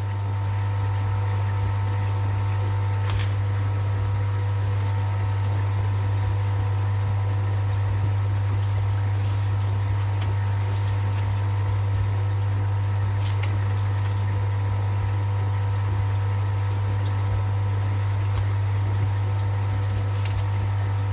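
A steady, unbroken low electric hum from a running pump, with a few faint ticks over it.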